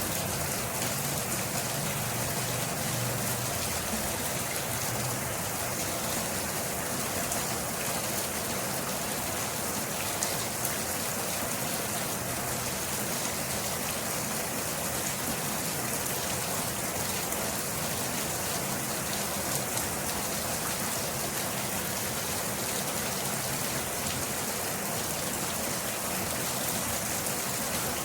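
Steady rainfall, a continuous even hiss of many drops hitting a surface.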